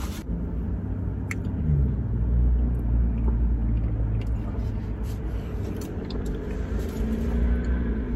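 Low, steady car engine rumble heard inside a car cabin, swelling a little about two seconds in, with a few faint clicks.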